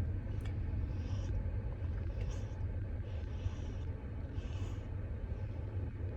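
Snoring: a steady low rumble with short hissy breaths every second or so.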